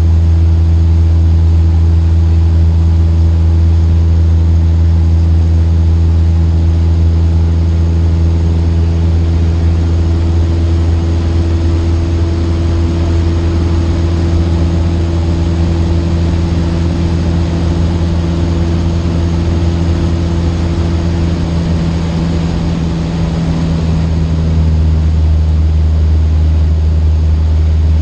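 Cessna 152's Lycoming O-235 engine and propeller droning steadily in the cockpit, with a slight dip and change in pitch about three-quarters of the way through.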